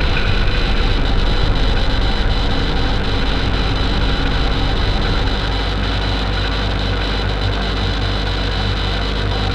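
Loud, steady low droning rumble with several held tones above it.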